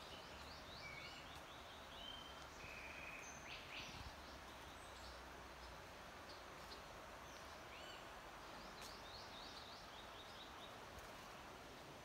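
Several wild birds chirping and calling in the trees, many short quick chirps with a few brief whistled notes, over a steady soft hiss.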